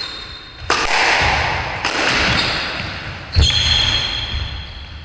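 Squash rally: the ball is struck hard by rackets and smacks off the court walls three times, about a second or more apart, each hit echoing around the court, the last the loudest. Shoes squeak briefly on the wooden floor.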